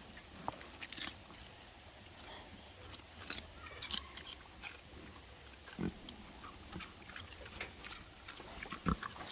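Farm animals eating celery tossed to them: scattered crunching and chewing clicks, with a short low grunt about six seconds in and again near the end.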